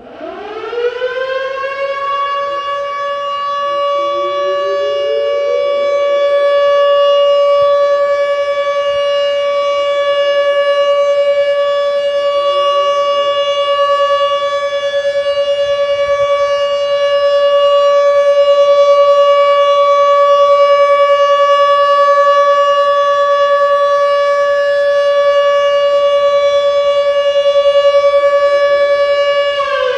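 Outdoor warning siren sounding for a monthly test: it climbs in pitch over about a second, then holds a loud, steady tone. Fainter sirens in the distance rise in pitch again and again behind it.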